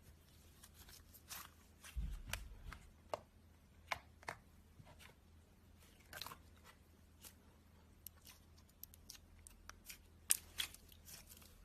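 Slime being handled, squeezed and pressed, giving irregular small clicks, crackles and pops, with a soft low thump about two seconds in.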